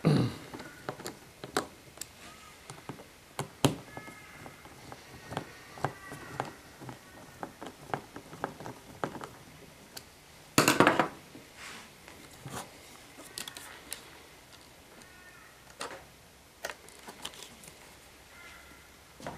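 Hand screwdriver turning screws into a plastic car instrument cluster housing, with scattered small clicks and knocks of the tool and plastic parts being handled. There is a louder brief handling noise about halfway through as the housing is moved.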